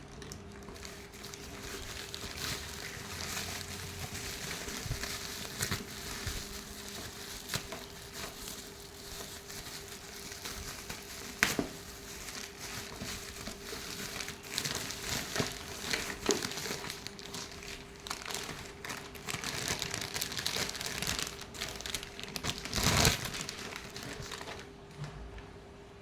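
Plastic packaging crinkling and rustling as it is handled and unwrapped, with scattered small clicks, a sharp knock about 11 seconds in and a louder bump near the end.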